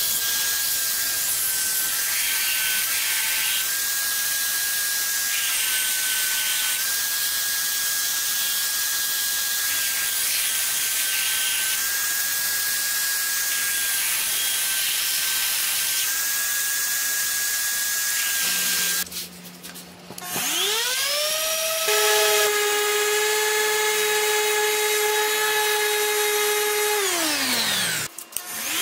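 Benchtop belt sander running with a steady whine while a steel axe head is pressed against the abrasive belt, a continuous grinding hiss. After a short pause an angle grinder spins up, runs at a steady pitch, winds down near the end and starts spinning up again.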